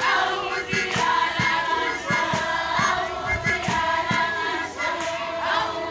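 A group of voices singing together in harmony, holding long notes, with irregular low thumps underneath.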